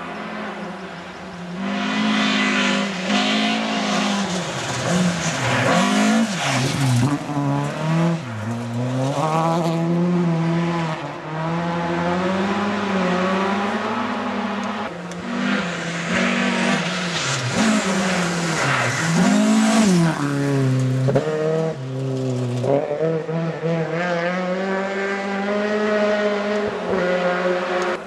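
Rally car engine revving hard as it approaches along a forest stage, its pitch climbing and dropping again and again with gear changes and lifts of the throttle.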